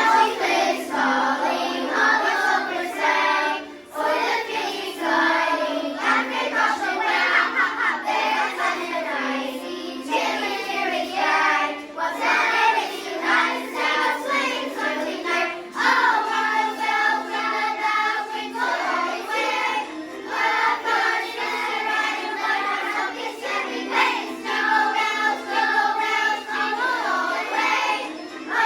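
Children's choir singing a holiday song with instrumental accompaniment.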